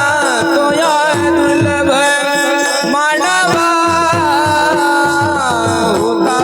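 Kirtan devotional music: singing over a steady held drone, with repeated mridang drum strokes whose deep tone slides down in pitch after each hit.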